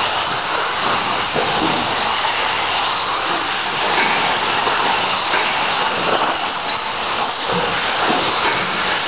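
Several TLR 22 electric 2WD RC buggies racing on a dirt track: a steady, noisy whir of motors, gearing and tyres on the dirt.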